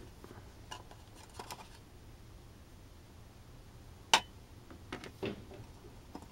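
Hard resin orgonite pucks clicking and knocking against a metal muffin tin and the tray as they are lifted out and set down, a few scattered light clicks with one sharp knock about four seconds in.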